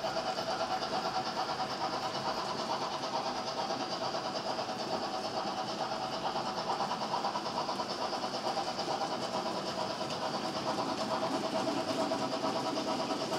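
HO-scale model trains running: the electric motors of BR 50 model locomotives hum and the wheels of a long train of tank wagons rattle over the track in a steady, dense clatter that grows a little louder near the end.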